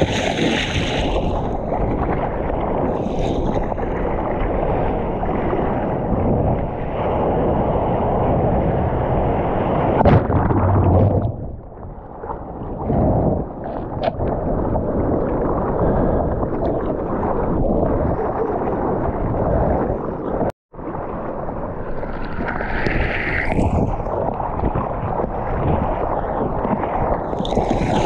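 Seawater rushing and splashing along a surfboard's nose as it moves through choppy ocean water, heard right at the board with water and wind buffeting the microphone. Brighter splashes come near the start and a little over twenty seconds in, and the sound cuts out for an instant about two-thirds of the way through.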